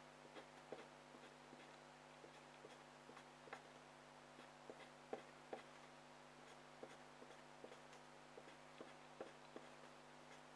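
Faint pencil-on-paper scratching: short, quick hatching strokes come irregularly, a few a second, while shading in a drawing. A steady low hum runs underneath.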